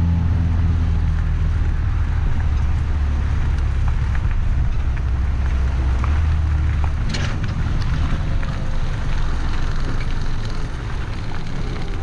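Farm tractor engine running steadily under load with a deep rumble, which eases off about seven seconds in.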